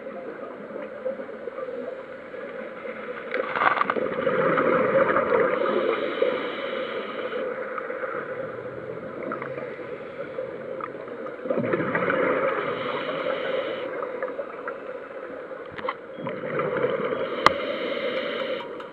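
Scuba regulator exhaust bubbling and rushing water, heard through an underwater camera housing, swelling in three long surges as the diver breathes out. A single sharp click sounds near the end.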